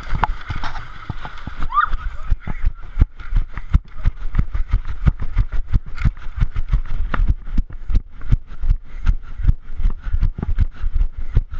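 A runner's footsteps thudding about three times a second, heard through a chest-mounted camera that jolts with each stride.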